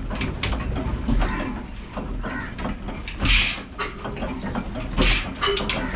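Old Ruston stationary diesel engine with a big flywheel turning over just after hand-cranking. A heavy low puff with a burst of hiss comes about every two seconds, with mechanical clatter between.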